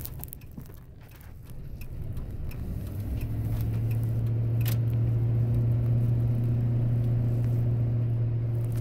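Vehicle engine running, a steady low drone that grows louder over the first few seconds and then holds.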